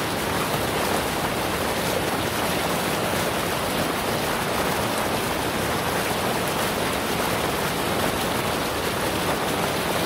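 River water rushing steadily over rocks, an even hiss of running water with no break.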